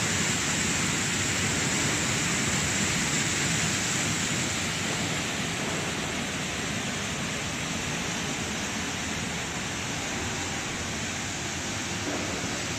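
Commercial bubble-type vegetable washing machine running: a steady rush of churning, bubbling water, easing slightly about five seconds in.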